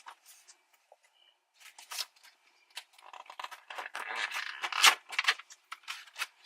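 Product packaging being handled and opened: a quick run of scratchy rustling and crinkling noises that starts about a second and a half in and is loudest near the end.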